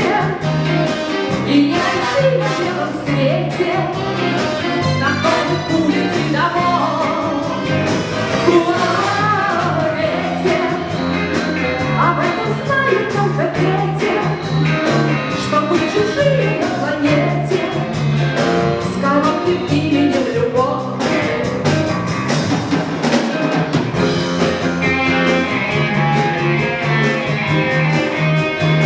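Live variety big band with drum kit accompanying a female singer. About three-quarters of the way through the voice stops and the band goes on playing steady held chords.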